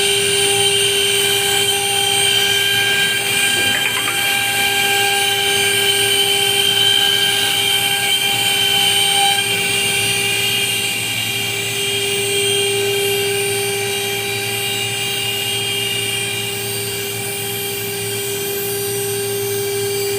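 CNC router spindle running with a steady, even-pitched whine.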